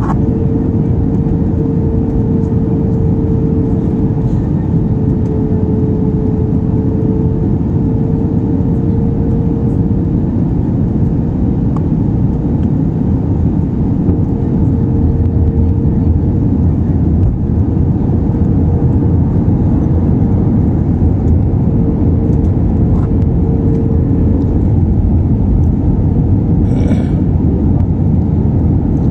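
Jet airliner cabin noise at a window seat during the approach: a steady rush of engine and airflow noise with a steady humming tone over it.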